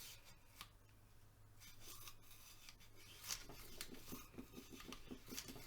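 Wire brush scrubbing the parts of a stripped 1911 pistol, faint scratchy strokes that settle into a quicker, regular back-and-forth of about five strokes a second in the second half.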